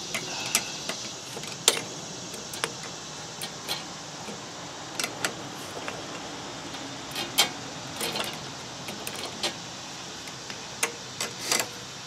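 Steel open-end wrenches clicking and clinking against a pair of nuts jammed together on a carburetor mounting stud, as the stud is worked loose. Sharp metal clicks come at irregular intervals, a dozen or so, some louder than others.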